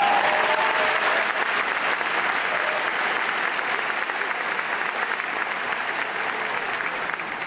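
Audience applauding, starting suddenly and loud, then slowly dying down.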